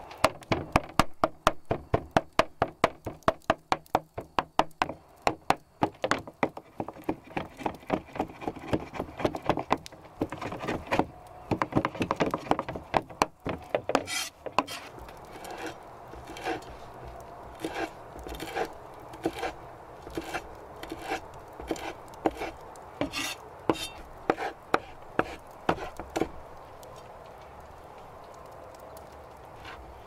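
Cleaver chopping raw beef into mince on a wooden cutting board, in fast, steady strokes of about four a second. The chops then turn slower and sparser as the cleaver cuts fresh coriander leaves, and they stop a few seconds before the end.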